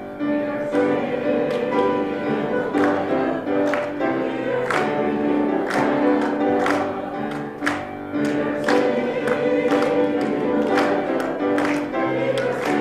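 A congregation singing a hymn together with instrumental accompaniment, and a sharp clap on the beat roughly every second or a little faster.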